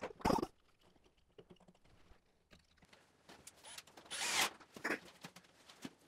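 Ribbed plastic-reinforced flex hose being handled and worked onto a dust port: its ridges scrape and rub, with a short loud scrape just after the start, a longer one about four seconds in, and small knocks between.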